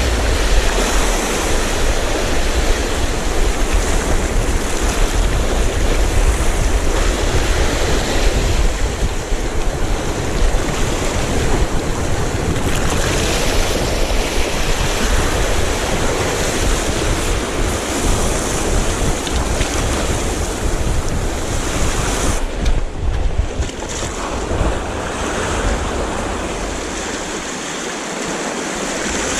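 Sea waves washing steadily against the shore, with wind buffeting the microphone in a low rumble.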